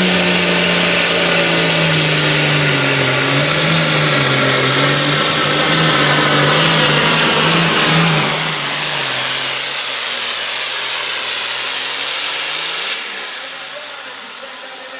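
John Deere 7830 super farm pulling tractor's turbocharged diesel engine running flat out as it drags the sled, its pitch wavering. About eight seconds in the engine note drops and fades as the pull ends, with a high whine falling away near the end.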